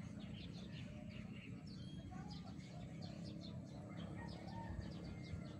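Small birds chirping, a busy scatter of short high calls, over a low steady background rumble.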